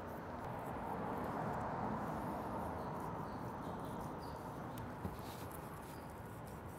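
Boning knife slicing and peeling fat and membrane off raw pork shoulder on a wooden cutting board: soft, wet cutting and tearing sounds over steady room noise, with a light tap about five seconds in.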